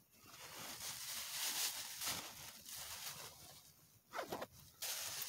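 Plastic bag rustling and crinkling as it is handled, with a short squeak about four seconds in.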